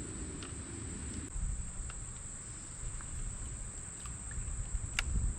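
Steady high-pitched drone of insects such as crickets, over a low rumble of wind or water on the microphone, with a few light clicks and one sharper click near the end.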